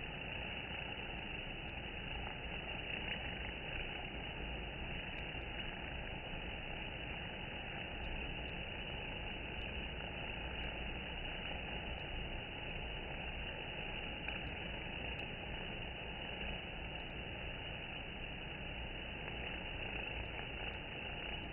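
Honeybees buzzing steadily at a wooden hive entrance: an even, unbroken sound with no pauses.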